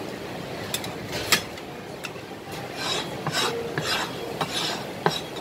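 A steel cleaver and metal tongs knocking on a plastic cutting board, with one sharp knock about a second in. In the second half, several short scrapes as the cleaver blade is dragged flat across the board.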